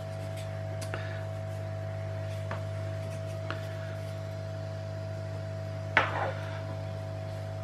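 Hot air rework station blowing hot air onto a circuit board to reflow solder paste under surface-mount resistors: a steady hum with a higher whine. A few faint clicks and a short knock about six seconds in.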